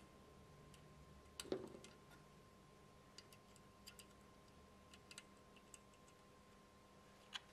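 Faint, scattered small metallic ticks of a hex key turning grub screws into a gearbox repair sleeve, the loudest about a second and a half in, over near-silent room tone.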